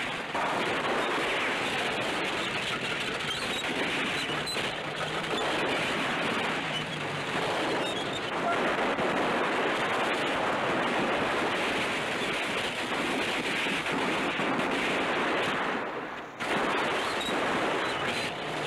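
Rifle and machine-gun fire crackling over the steady, dense noise of a bulldozer's engine and tracks, with a brief drop near the end.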